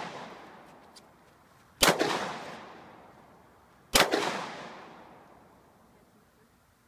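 Two pistol shots about two seconds apart, each loud crack followed by a long echo that dies away over a couple of seconds.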